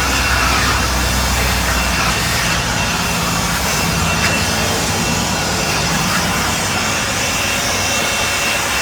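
DeWalt blower running at a steady speed, blowing debris out of a stucco crack: a loud, even rush of air with a thin steady whine. It cuts off abruptly at the very end.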